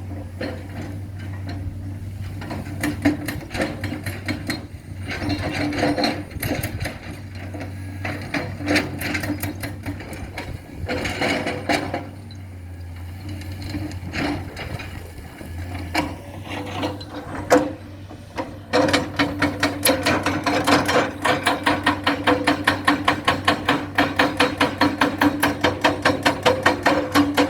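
Excavator running with a steady low engine drone and irregular metallic clanks and knocks. About two-thirds of the way in, a loud, regular knocking starts, about three strokes a second.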